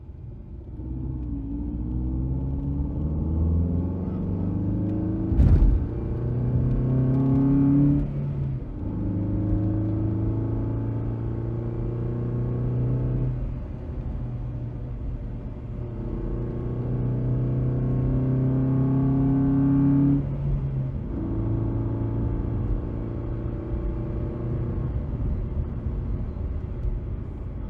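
Car engine heard from inside the cabin, muffled, accelerating through the gears: its pitch climbs steadily, drops at each upshift about three times, then climbs again. A short sharp knock comes about five and a half seconds in.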